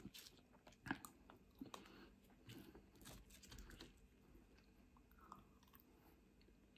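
Faint chewing and crunching of chip-shop chips, with small clicks and crackles as fingers pick through the food on the plate; a sharp click about a second in is the loudest.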